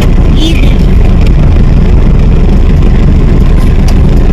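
Steady low rumble of a car driving, with constant road and engine noise and no change in level.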